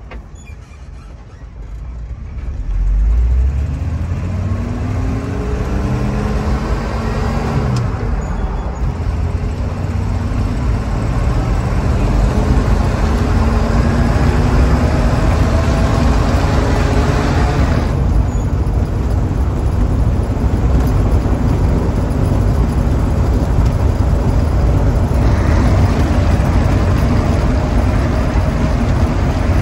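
1977 Jeep CJ5's AMC 258 inline-six pulling away and accelerating, heard from inside the cab. The engine note climbs, drops back about 8 seconds in as the manual gearbox is shifted, then climbs again under steady road and wind noise.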